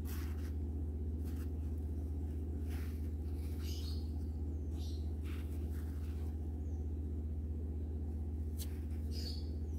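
A steady low hum, with faint scattered rustles and ticks as yarn ends are tied off and threaded with a needle, and a few faint high chirps.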